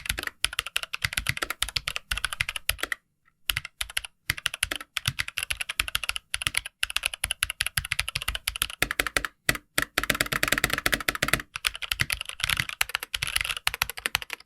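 Fast, continuous typing on a Logitech G413 SE full-size mechanical keyboard with tactile brown-type switches: a dense clatter of keystrokes, with a short pause about three seconds in.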